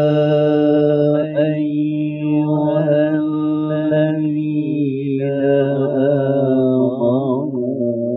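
A man reciting the Quran in melodic tilawah style into a microphone, holding one long steady note that turns into a wavering, ornamented run about two-thirds of the way through.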